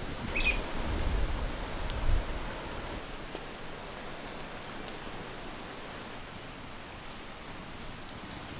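Open wood fire burning under a large pan: a steady hiss with a few faint crackles. A brief high chirp comes about half a second in, and a few low thumps follow in the first two seconds.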